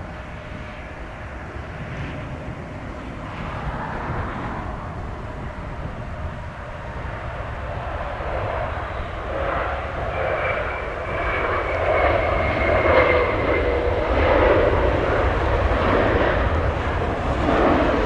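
Jet airliner engines growing steadily louder, a low rumble with a whining tone on top, loudest in the second half.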